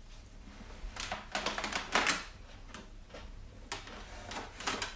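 A run of irregular light clicks and taps, several in quick succession about a second in and a few more near the end.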